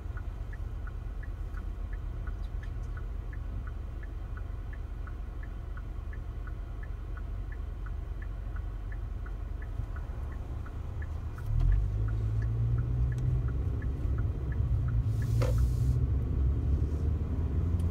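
Road noise inside a moving car: a steady low rumble that gets louder about twelve seconds in. A faint, regular ticking runs about three times a second, and there is a brief hiss near the end.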